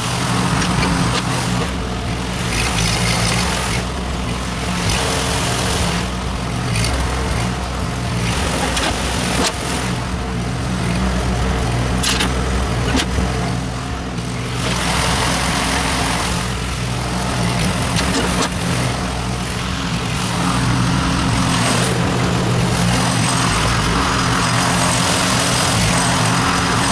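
An engine running steadily at a constant speed, with patches of hiss coming and going over it.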